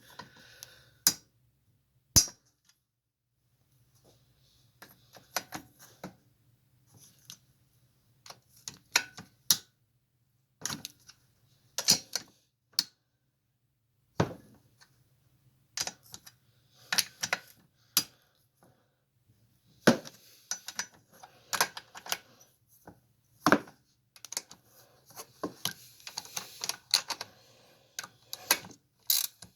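Irregular clicks and metallic clinks of hand tools and small metal parts being handled while a Briggs and Stratton Quantum lawn mower engine is taken apart, with a faint steady hum underneath.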